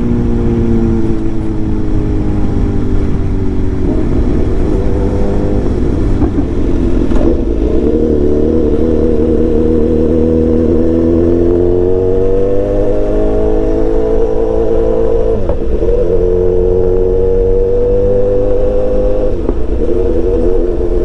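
BMW S1000XR's inline-four engine on the move. Its pitch falls at first, then rises twice under acceleration, with a sharp brief dip between the two rises about three-quarters of the way in.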